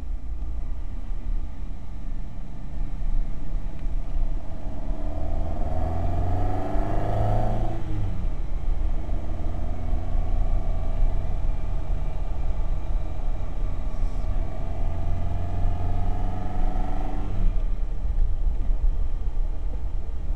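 Ferrari 308 GTB's V8 heard from inside the cabin, rising in pitch as the car accelerates for several seconds, dropping suddenly about eight seconds in, then running fairly evenly with a slow rise before easing off again near the end.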